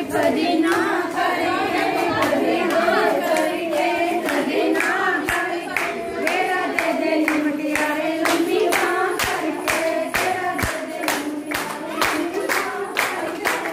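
A group of women singing together in chorus, with hand clapping that settles into a steady, even beat in the second half.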